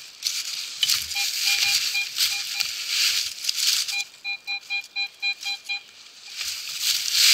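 Metal detector beeping as its coil sweeps over a dug hole: short beeps at one steady pitch, a few spaced ones and then a quicker run of about nine, signalling a metal target still in the hole. Dry leaves rustle and crunch under the coil and boots, loudest near the end.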